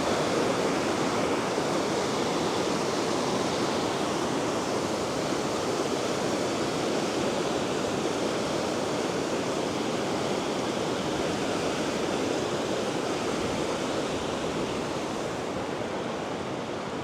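Swollen river rapids rushing over rocks after rain: a steady rush of fast-flowing water, fading slightly near the end.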